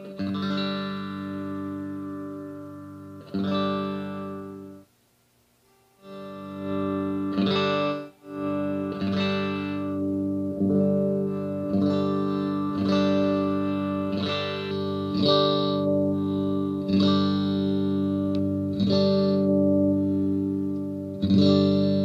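Tokai Silver Star SS-36 electric guitar, played through an amplifier: chords struck every second or two and left to ring. The sound stops for about a second around five seconds in, then the chords resume.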